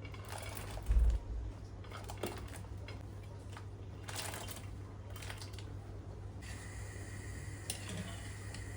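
Clicks, light knocks and short scrapes of kitchen utensils being handled over a steady low hum.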